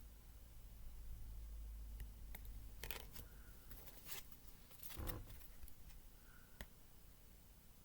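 Tarot cards being handled: a few soft slides and taps of card stock, the loudest about five seconds in, over a faint low hum.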